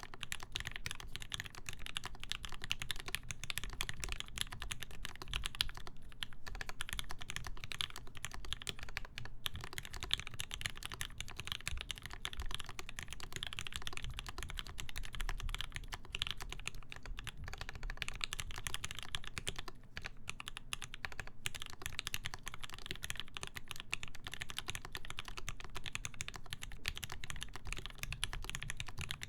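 Continuous fast typing on a mechanical keyboard with lubed Gateron Ink linear switches in a full brass plate, GMK keycaps, case and plate foam, with dense key clicks and a few brief pauses.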